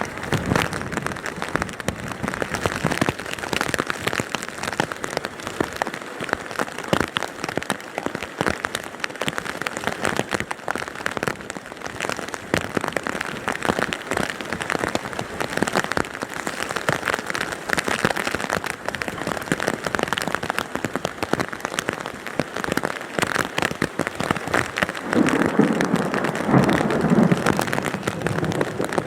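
Hailstorm: a dense, steady rattle of hailstones pelting down and striking surfaces.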